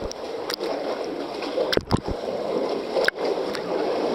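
Sea water sloshing and splashing close by as people swim, with a few sudden sharper splashes.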